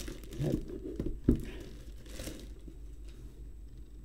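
Plastic courier satchel crinkling as a taped cardboard box is slid out of it and set on the table, with a soft knock about a second in. The rustling tapers off in the second half.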